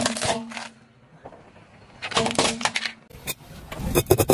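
Hard plastic cracking and crunching under a car tyre as it rolls over a plastic toy, in two bursts about two seconds apart, then a few sharp separate cracks near the end.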